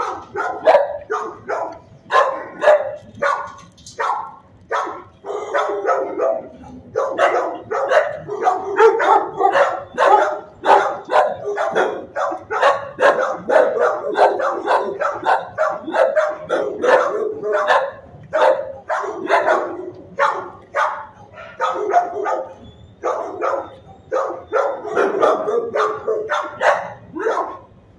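Dogs barking over and over in shelter kennels, several barks a second with only brief lulls.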